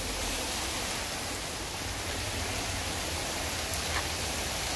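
Heavy rain falling on a flooded street, with storm runoff rushing along the gutter like a river: a steady hiss of water.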